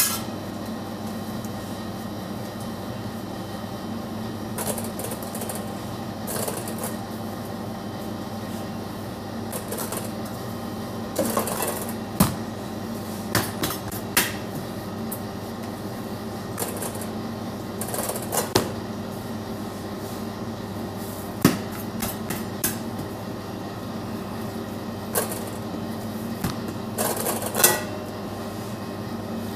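Irregular knocks and scrapes of bread dough being divided and handled on a marble work counter, over a steady background hum.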